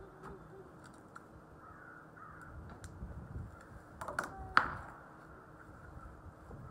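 A single suppressed shot from a CZ 457 .22 LR rimfire rifle about four and a half seconds in: a sharp crack with a short ringing tail, just after a couple of light clicks. Crows caw faintly in the background.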